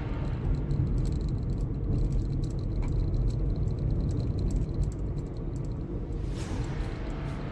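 Road noise heard from inside a moving car: a steady low rumble with light scattered clicks and rattles, and a rise of tyre-and-air hiss about six seconds in.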